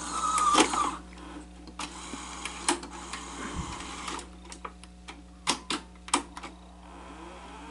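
Sony SL-HF350 Betamax VCR's tape transport working through rewind and picture search: a brief mechanical whirr, then a series of sharp clicks from the buttons and mechanism over a steady low hum, with a faint rising whine near the end as the reels start to turn. The machine is struggling to rewind, which the repairer suspects comes from too much tape tension.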